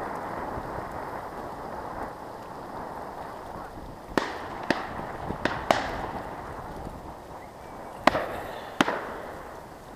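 Shotgun shots during a duck hunt: five sharp reports in two clusters, three about four to six seconds in and two about eight to nine seconds in, over a steady rushing noise.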